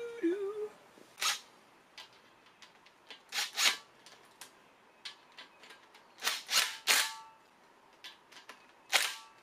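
Cordless impact driver running in and hammering tight the bolts of an engine oil pump, in a series of short bursts with quiet pauses between them.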